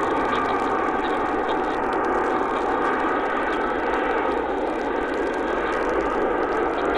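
Airbus A380's four Rolls-Royce Trent 900 turbofans at approach power as the jet passes low over the runway on short final: a steady jet rumble with a faint whine over it.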